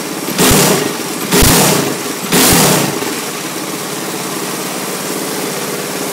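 GX200-clone single-cylinder four-stroke kart engine with an F200 exhaust pipe, revved in three quick throttle blips about a second apart, then idling steadily.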